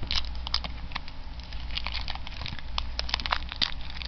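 Plastic shrink wrap crinkling and crackling in irregular bursts as it is picked at and peeled off a sealed deck of trading cards.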